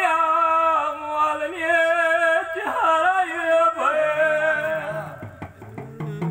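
Live male singing of a Gujarati devotional folk song, with long held notes that waver in pitch. A lower voice comes in about four seconds in.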